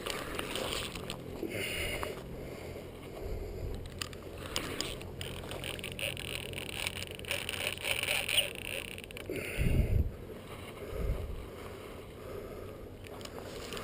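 Water splashing and sloshing as a hooked Mekong catfish is fought at the surface, with a couple of low thumps near the middle.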